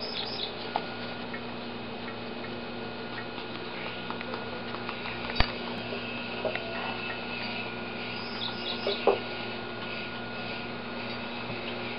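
West Highland white terrier puppies, five weeks old, moving about on a tiled floor: scattered light ticks and a few faint high squeaks over a steady background hum, with one sharp click about five seconds in.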